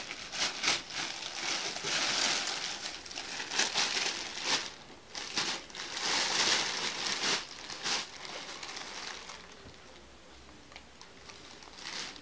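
Thin plastic bag crinkling and rustling as a cat climbs into it and settles inside, in two long spells of crackling. The crinkling fades about nine seconds in, then comes back briefly near the end.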